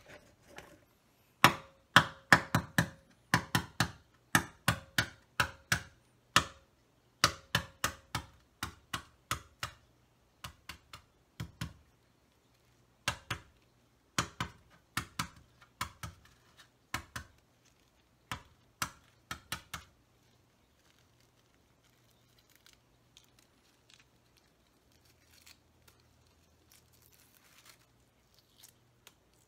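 Hard-boiled eggshells being cracked by quick taps against a hard surface: sharp clicks in runs of several taps, which stop about two-thirds of the way through. After that come faint scratching and crinkling as the cracked shell is peeled off.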